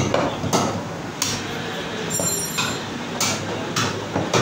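A meat cleaver chopping mutton on a wooden log butcher's block: about six sharp chops, irregularly spaced, with a pause of about two seconds in the middle.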